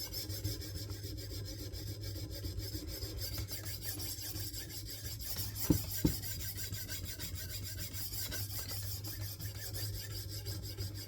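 A 52100-steel bunka knife edge being honed on the 600-grit stone of a KME guided sharpening system: quick, even back-and-forth strokes of stone rasping on steel. Two short clicks come about halfway through.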